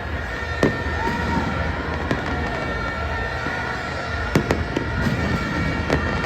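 Fireworks display going off: sharp bangs of bursting shells, a quick cluster of three about four seconds in, over a continuous din with a steady high tone.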